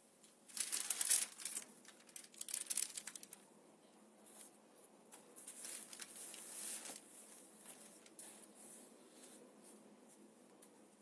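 Paper rustling and crinkling as sheets of calligraphy practice paper are handled, loudest in the first three seconds, then dying down to softer intermittent rustling.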